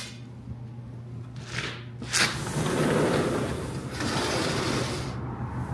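Two short scrapes about two seconds in, then a rushing noise for about three seconds as a door to the outside is opened, letting in the steady hum of city traffic.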